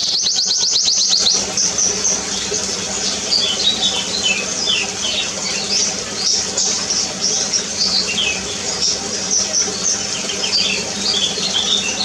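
Several small aviary birds chirping and twittering, with many short high chirps throughout. A quick rattling run of clicks comes in the first second or so, over a steady low hum.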